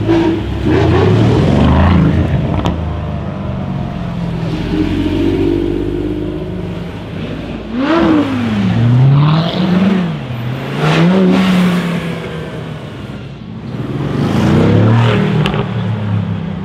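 Several V8 sports cars, among them a Mercedes-AMG C63 coupé and Chevrolet Corvette C7s, revving and accelerating away one after another. The engines come in loud bursts whose pitch rises and falls, with the busiest run of quick revs about eight to twelve seconds in.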